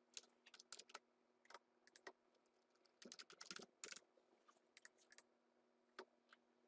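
Faint typing on a computer keyboard: irregular key clicks in two runs, then two lone clicks near the end.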